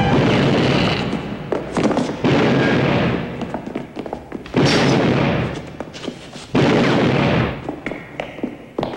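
Gunshots in a film action scene: four sudden loud blasts about two seconds apart, each dying away over about a second.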